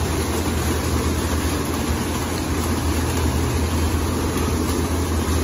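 Ryko Soft-Gloss Maxx rollover car wash running on a pickup truck: the spinning foam side brushes and water spray make a steady rushing noise over a constant low machine hum.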